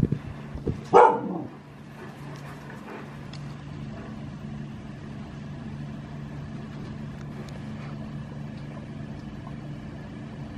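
A few sharp knocks, then one loud dog bark about a second in, sliding down in pitch. A steady low hum runs underneath.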